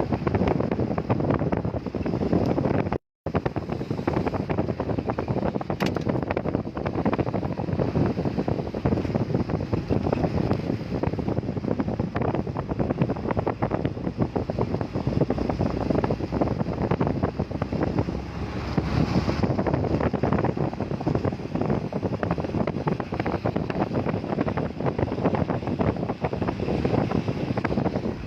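Heavy rain falling with wind buffeting the microphone, a steady dense rushing noise. The audio cuts out completely for a moment about three seconds in.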